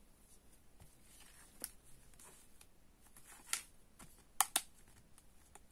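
Oracle cards being handled: a few faint slides and light clicks of card against card, the sharpest at about three and a half and four and a half seconds in.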